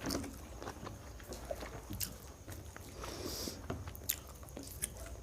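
Close-up eating sounds: chewing and biting on chilli chicken and egg fried rice, with scattered small wet clicks and smacks of the mouth.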